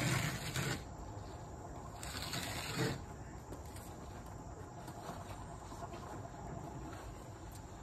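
Hands rubbing and pressing foam padding against the pool steps: two short scuffing sounds, at the start and about two seconds in, then a faint steady outdoor background.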